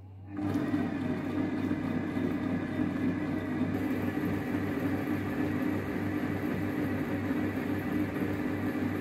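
Monsieur Cuisine Plus kitchen robot's motor and blade running at speed 2, stirring a thin milk, yeast and flour starter in its steel bowl. It starts about a third of a second in and runs as a steady whir with a faint regular pulse.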